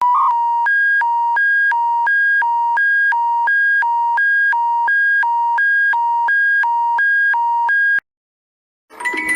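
Emergency alert tone: a buzzy electronic two-tone signal alternating between a low and a high pitch, switching about three times a second. It cuts off abruptly about eight seconds in. After a second of silence, chime-like music notes start right at the end.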